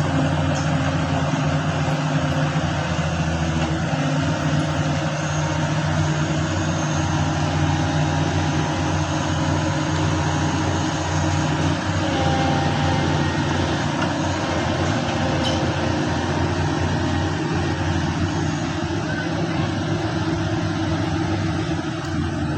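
Large excavator's diesel engine running steadily, a continuous low hum with a broad mechanical noise over it.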